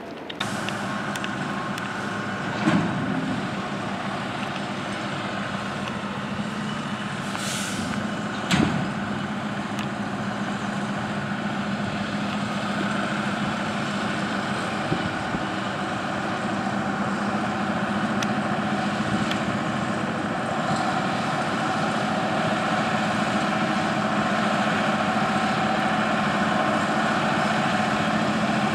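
Diesel engine of a Brandt road-rail truck running as it hauls work cars slowly along the rails: a steady engine drone with a faint whine that grows slightly louder toward the end. Short clanks about three and nine seconds in, and a brief hiss of air about seven seconds in.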